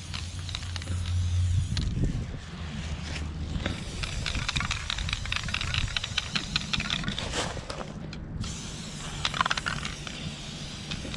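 Aerosol spray paint can being sprayed in short hisses, with a run of quick rattling clicks in the middle, the sound of the mixing ball inside the can.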